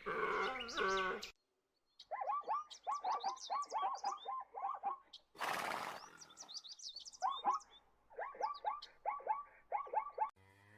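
Birds chirping in rapid runs of short notes that fall in pitch, with a brief rushing noise midway. The tail of a big cat's growl is heard at the very start, and a cow's moo begins at the very end.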